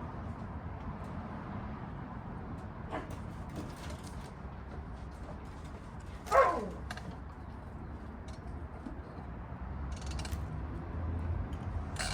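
Light handling clicks and knocks over a low steady hum, with one short squeak that falls sharply in pitch about six seconds in.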